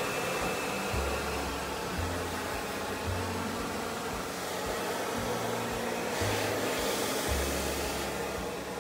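Handheld hair dryer blowing steadily as hair is blow-dried, a constant airy rush, with low bass notes about once a second underneath.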